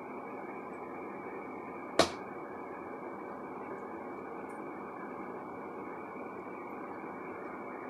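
Steady background hum of room noise, with one sharp click about two seconds in.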